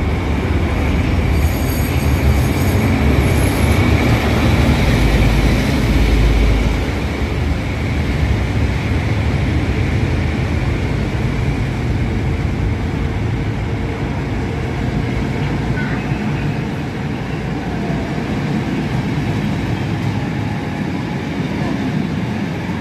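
SU45 diesel locomotive passing close under load, its V12 diesel engine giving a heavy, loud rumble that peaks about six seconds in. It is followed by the steady rolling clatter of passenger coaches passing on the track.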